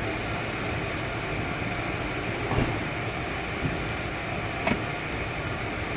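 Steady background hum, with a few light clicks and knocks a couple of seconds in and again near the end as the plastic tail-light access cover and trim are handled and refitted.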